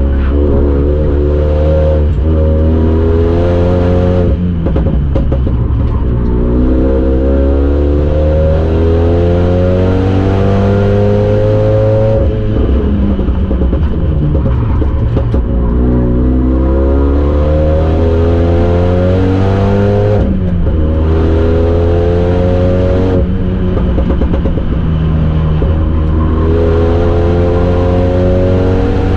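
Renault Mégane 3 RS Trophy 265's turbocharged 2.0-litre four-cylinder, heard from inside the caged cabin under hard acceleration. It revs up again and again, dropping back at each upshift, with a slower fall in pitch about twelve seconds in as the car slows.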